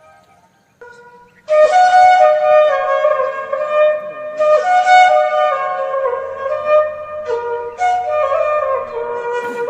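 Flute music. After a quiet first second a soft note enters, and the full melody comes in about a second and a half in, gliding between held notes.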